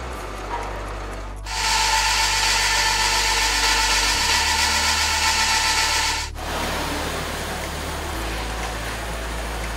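MAN truck's wheels turning on the steel rollers of a rolling-road dynamometer, a steady whine over hiss. It grows loud about a second and a half in and cuts off suddenly after about six seconds, with quieter running noise after.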